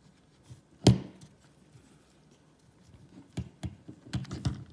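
Handling noise from a neck strap being threaded onto a Canon EOS M50 camera body: one sharp knock about a second in, then a run of small clicks and taps near the end.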